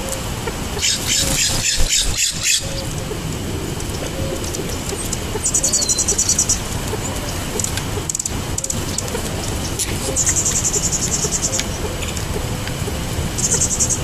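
Four bursts of a high, rapid buzzy trill, the first about a second and a half long and the last one short, over a steady outdoor hiss.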